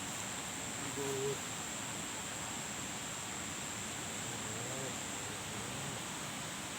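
Steady hiss of heavy rain and rushing, swollen river water, with a faint high steady whine above it. Two short faint hooting tones come through, about a second in and again near five seconds.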